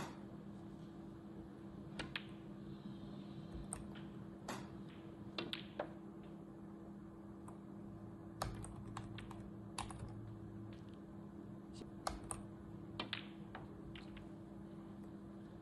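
Scattered sharp clicks at irregular intervals, a few of them in quick pairs, over a faint steady hum.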